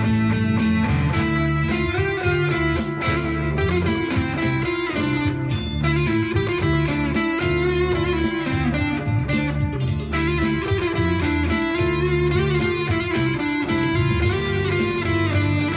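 Fender Stratocaster electric guitar played through a Fender Blues Jr IV valve amp, picking and holding lead notes over a backing track with a bass line.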